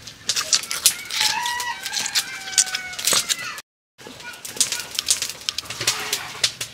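Wet handling sounds of hands rubbing and slapping marinade onto a raw stuffed turkey, a run of short smacks and squelches, with birds calling in the background during the first half. The sound drops out completely for a moment just past the middle.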